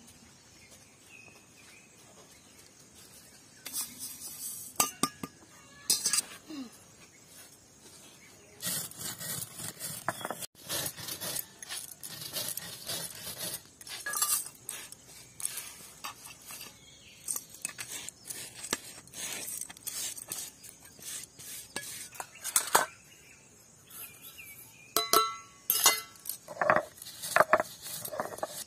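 Stone roller of a sil-batta grinding seeds on a flat grinding stone: repeated gritty scraping strokes with small knocks. The rolling starts about a third of the way in, with a few sharp clinks of a steel plate before it and more ringing clinks near the end.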